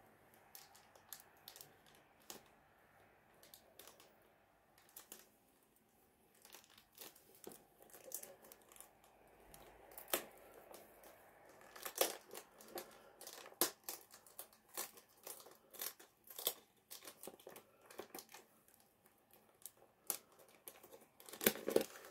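Packaging being handled and crinkled: irregular crackles, sparse at first, then busier and louder about halfway through.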